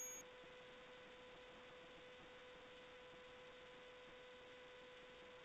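Near silence: a faint steady hiss with a thin, steady electrical hum, the noise floor of a security camera's microphone recording an empty scene.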